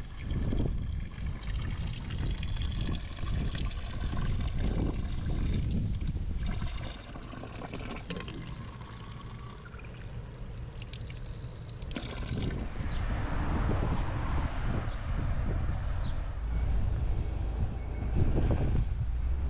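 Spring water trickling from a rock spout and splashing into a plastic bottle as it fills. Wind rumbles on the microphone, more so toward the end.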